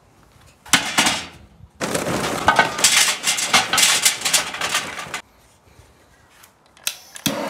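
Charcoal clattering and clinking against metal as it tumbles into a chimney starter on a kettle grill, in a short burst and then a longer one of about three seconds. Near the end, a click and then a butane torch flame starts hissing steadily.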